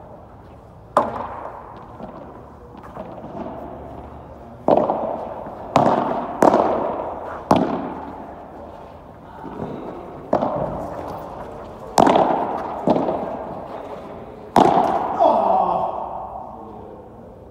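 Padel rally: a ball struck by solid padel rackets and rebounding off the court, about ten sharp pops at uneven intervals, each with an echoing tail from the domed indoor hall.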